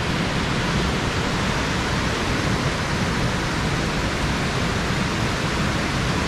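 Water spilling over a dam: a steady, even rushing.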